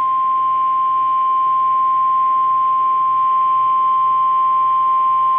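NOAA Weather Radio warning alarm tone, a single steady 1050 Hz beep held unbroken for about six seconds and cutting off sharply near the end. It signals that a warning message follows. A faint steady hum from the receiver lies under it.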